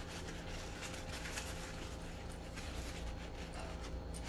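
Quiet handling sounds: a paper towel rustling as small metal pendants are wiped dry, with a few faint ticks, over a steady low hum.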